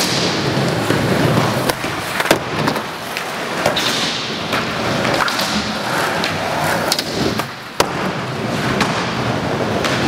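Skateboard wheels rolling over a skatepark floor, a continuous grinding roll, with several sharp clacks of boards popping and landing; the loudest come about two seconds in and near eight seconds.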